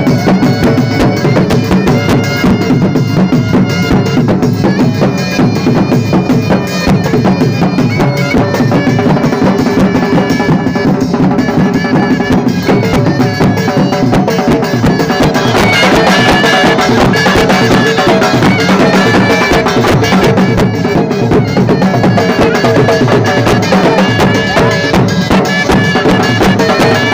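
Surna, the Baloch double-reed shawm, playing a continuous reedy melody over steady drumming. This is Lewa dance music, and the upper range grows brighter about halfway through.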